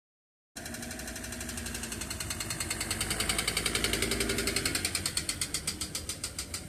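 Diesel engine of a Dodge Sprinter 2500-based Winnebago motorhome running with a rapid, even clicking, about ten a second, that grows louder over the first few seconds. It is the serious clicking noise the owners cannot identify, the mechanical fault that has stranded the van.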